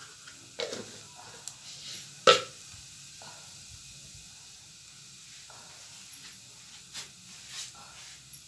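Mustard seeds and urad dal sizzling in hot cooking oil during tempering: a faint steady sizzle with scattered sharp pops as the seeds splutter, the loudest pop a little over two seconds in.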